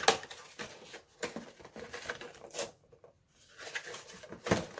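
Clear plastic blister packaging and its cardboard backing crinkling and crackling in the hands as an action-figure package is pulled open, in irregular crackles and rustles with a sharper crackle near the end.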